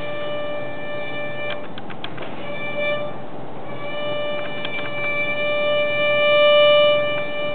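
Violin holding one sustained note in three long bow strokes, with short breaks at the bow changes. The tone swells louder near the end as the bow is steered in toward the bridge.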